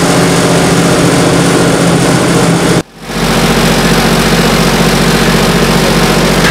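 A waste incinerator's blower motor running steadily, a loud even drone with a low pitch. The sound drops out for a moment about three seconds in and then carries on unchanged.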